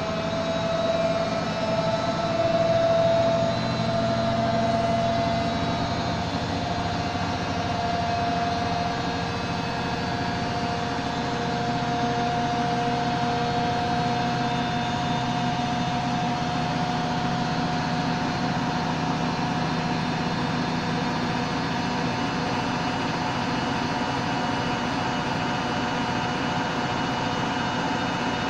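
Hoover Electronic Automatic de luxe washing machine spinning: a steady motor and drum whine that climbs slightly in pitch over the first several seconds, then holds level over a low hum.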